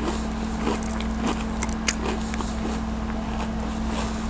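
Steady low hum throughout, with a few faint, soft clicks of chewing.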